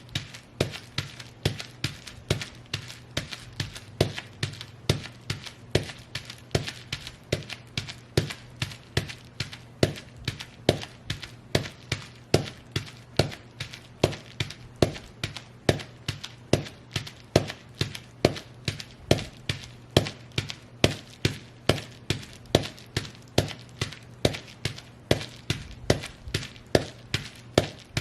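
Fur-covered sheepskin boots stomping on bubble wrap in a steady, even rhythm, each stomp a sharp crunching thud.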